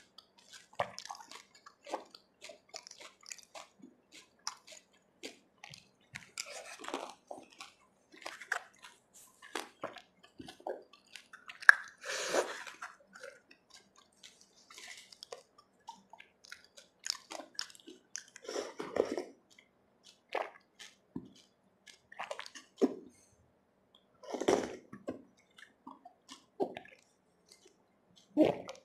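Close-miked pani puri eating: puris dipped into spiced water with splashes and drips, then crisp shells cracking and wet, squishy chewing. Irregular small crunches run throughout, with several louder wet bursts of about a second each.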